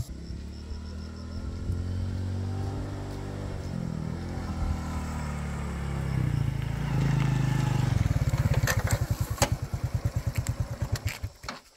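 Small motorbike engine running, its pitch rising and shifting for several seconds, then falling back to a throbbing idle and cutting off near the end. A few sharp clicks come about three-quarters of the way through.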